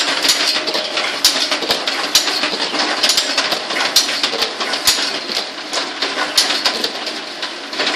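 Bamboo-splitting machine for satay skewers running: a steady mechanical noise with many irregular sharp clacks.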